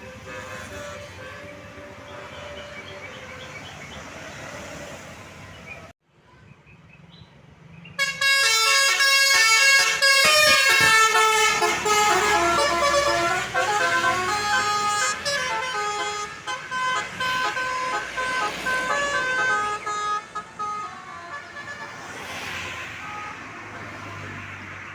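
A tour bus's telolet basuri horn, a multi-note musical air horn, playing a loud, quick melody of stepped notes from about eight seconds in. It fades a few seconds before the end under engine and traffic noise. Before that comes a fainter melody over traffic noise, broken by a brief silence about six seconds in.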